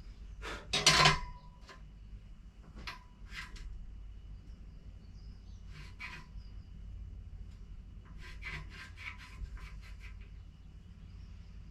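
A metal speed square handled against steel box section while a cut is marked out: a few light metal knocks and scrapes, the loudest about a second in, some ringing briefly, then a run of quick scratching strokes a little past the middle.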